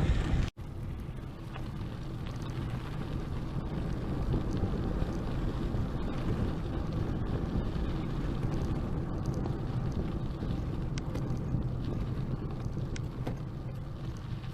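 Wind rumbling on the microphone of a moving bicycle rider, with steady tyre rolling noise and scattered faint ticks. The sound cuts out briefly about half a second in.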